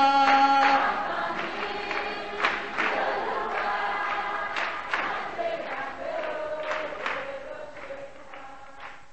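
Choir singing with music, fading out steadily and ending just at the close.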